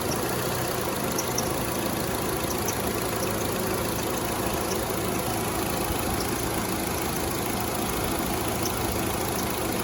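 Car engine idling steadily with the transmission in drive.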